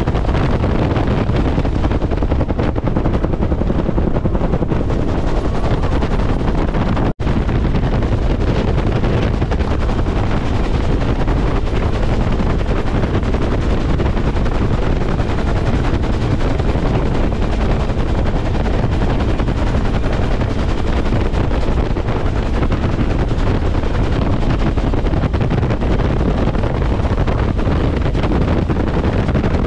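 Bell UH-1 Huey helicopter in flight, heard from inside the cabin: loud, steady turbine and rotor noise with the rapid beat of its two-blade main rotor. The sound cuts out for a split second about seven seconds in.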